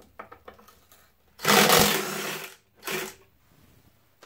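Ryobi cordless driver spinning a bolt out while a wrench holds the nut: one motor burst about a second long starting about a second and a half in, then a shorter burst near the three-second mark. Light metal clicks come before it.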